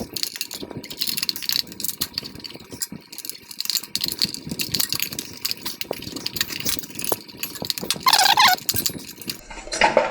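Dense clicking and rattling as a urethane band saw tire is stretched onto the metal wheel by hand and a tire tool is worked around the rim. A brief pitched sound stands out near the end.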